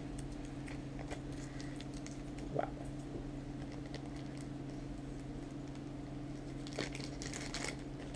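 Small clear plastic zip bags crinkling and rustling as they are handled and opened, in light scattered rustles with a denser burst about seven seconds in. A steady low hum runs underneath.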